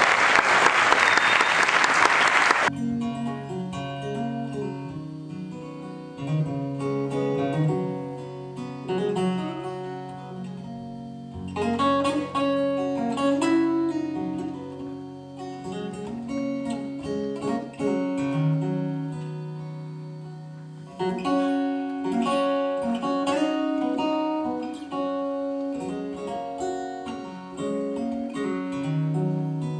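Audience applause stopping about three seconds in, then a solo acoustic guitar, plucked, playing an instrumental opening with a moving bass line under held notes.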